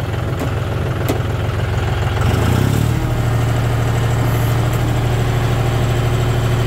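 John Deere 5050D's three-cylinder diesel engine running at idle. About two and a half seconds in its pitch shifts, and it then runs on as a steadier hum.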